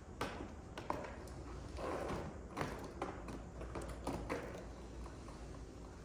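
Irregular knocks, taps and rustles of a switched-off upright vacuum and its extension cord being handled and moved on carpet, with no motor running.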